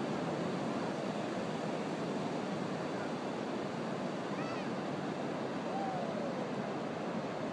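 Ocean surf washing steadily, with two brief faint cries over it in the middle, one short arching note and then a falling one.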